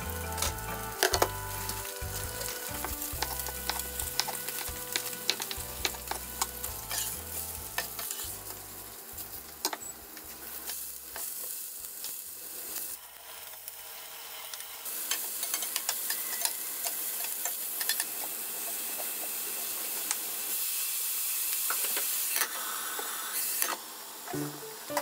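Sea bream fillets frying skin-side down in hot olive oil: a steady sizzle with scattered light clicks. The sizzle grows louder in the second half, as broccoli and then sake go into the pan.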